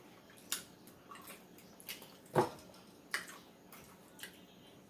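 Close-miked eating sounds: wet lip smacks and chewing clicks, about seven short ones scattered through the few seconds, the loudest about halfway in.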